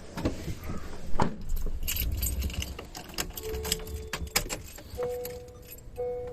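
Keys jangling with small clicks and knocks of handling. About five seconds in, a steady electronic beep starts, repeating about once a second.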